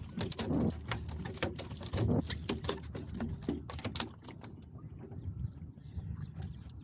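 A hooked largemouth bass thrashing and splashing at the surface beside a boat as it is brought in and landed, with a run of sharp clicks and rattles that thin out after about four seconds. Wind buffets the microphone underneath.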